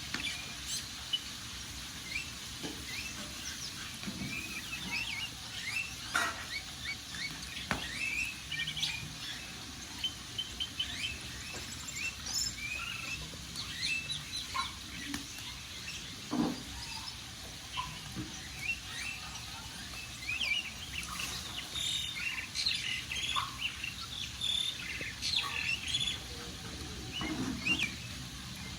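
Small birds chirping over the steady crackle of a wood fire, with scattered sharp pops from the burning wood.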